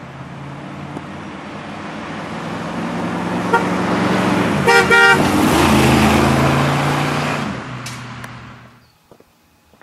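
1960 Chevrolet Impala with its 348 cubic-inch V8 driving past: the engine and tyre sound builds as the car approaches. The car horn gives two short toots as it comes alongside. Then the engine note drops in pitch and fades as the car pulls away.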